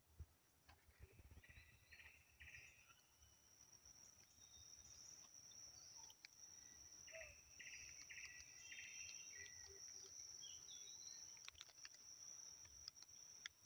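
Faint insect ambience: a steady high-pitched insect drone, with two spells of chirping trills, one early on and a longer one in the middle.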